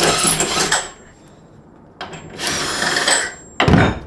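Power drill driving a T55 Torx socket, spinning out a truck-bed tie-down cleat bolt in two short runs with a high motor whine, then a single heavy thump near the end.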